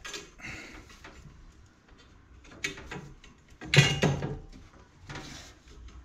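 Copper pipe being handled and fitted behind a boiler's mounting frame: a few light knocks and scrapes of metal against the frame and wall, with a louder clatter about four seconds in.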